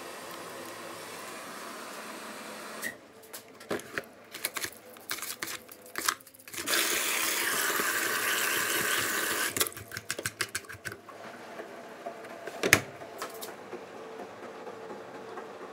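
A scoop scraping and clicking in a tub of powdered oxygen stain remover, then a steady hiss for about three seconds as the powder is poured into a washing machine's dispenser drawer. More clicks follow, then a single knock as the drawer is pushed shut, and after it the washer's low, steady running.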